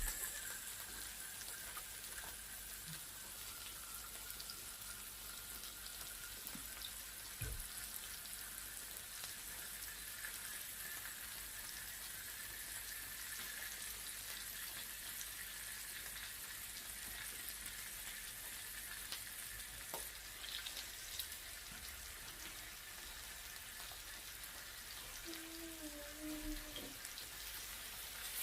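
Meat sizzling on a tabletop electric gourmet grill, a steady frying hiss, with a couple of faint clicks of utensils.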